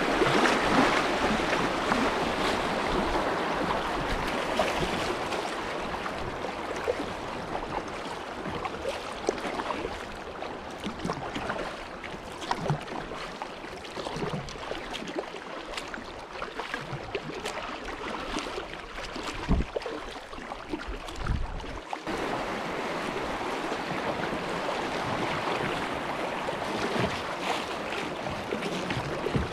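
River water rushing and splashing around a kayak running a shallow riffle. It eases to calmer, quieter water with a few short low bumps, then the rushing rises again suddenly about two-thirds of the way through.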